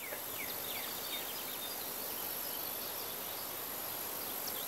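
Outdoor background ambience: many short, quick falling bird chirps over a steady hiss, with a thin, high, steady insect-like tone.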